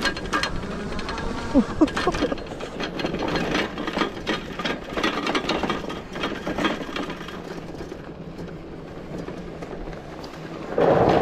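Gotrax Tundra fat-tire electric bike rolling over a rocky dirt trail and gravel: tires crunching over stones, with the bike and its add-on rack rattling over bumps. Near the end there is a brief louder rush of noise.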